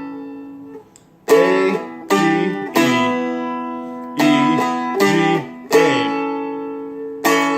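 Seagull Merlin stick dulcimer strummed with a pick, playing the song's chorus chords. A ringing chord fades to a brief gap about a second in, then further strummed chords ring out and fade between strokes.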